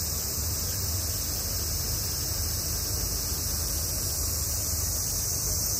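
Steady outdoor ambience: an even high-pitched hiss with a low rumble underneath, without any distinct events.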